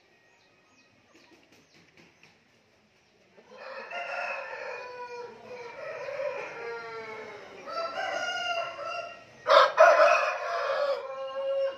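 Game roosters crowing: after a few near-silent seconds, long drawn-out crows follow one another, the loudest about ten seconds in.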